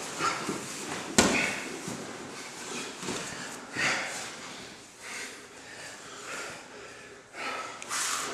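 Grappling on foam mats: bodies shifting and scuffing, with bursts of heavy breathing and a sharp thump about a second in.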